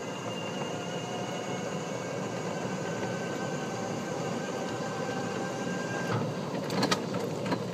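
E-Z-GO Workhorse 800E electric utility cart driving along asphalt: steady running noise of tyres and drivetrain with a thin, steady high whine. A few sharp rattles or clicks come about six seconds in.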